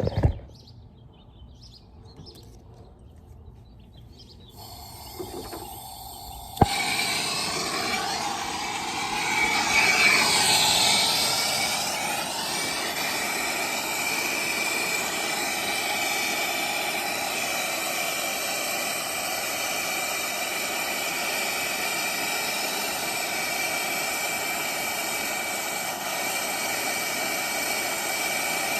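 Brazing torch lit: a faint gas hiss, a sharp pop of ignition about six seconds in, then the flame's steady loud hiss that swells briefly a few seconds later and holds on.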